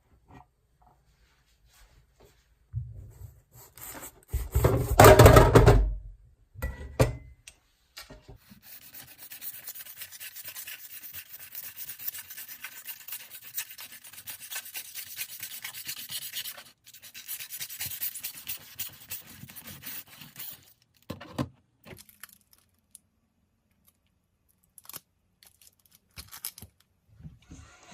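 Rubbing and scraping noises, with a loud burst about five seconds in, then a long stretch of steady hiss with fine crackles.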